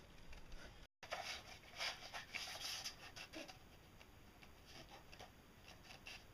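Faint rustling and scratching of sheet material being handled: a cardboard template and cloth being pressed and slid about on a floor. It starts after a short break in the sound about a second in, is busiest for the next two seconds, then thins to scattered scratches.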